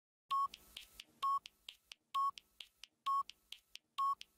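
Countdown timer beeping: five short, single-pitch beeps about a second apart, with faint ticks between them.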